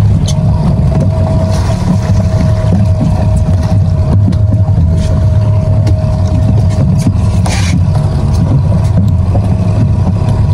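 A boat's outboard motor running steadily at trolling speed, a low rumble with a thin constant whine above it. A short hiss breaks in about seven and a half seconds in.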